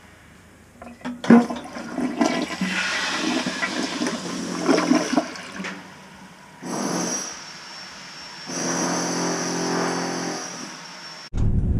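Mansfield toilet flushing: a sharp click about a second in, the rush of water down the bowl, then the hiss of water refilling. It cuts off suddenly near the end into a low rumble.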